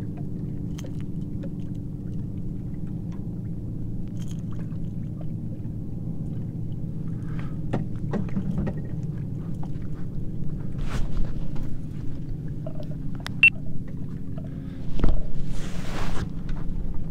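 A boat motor's steady low hum, with scattered clicks of fishing tackle and a loud splashing rush about fifteen seconds in as a trout strikes at the topwater lure.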